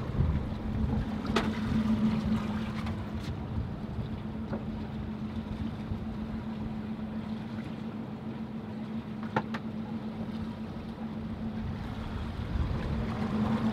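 Steady low hum of the boat's motor running, with a few faint knocks.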